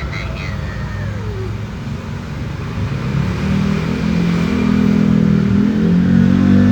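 A motor vehicle engine running, growing louder from about halfway through.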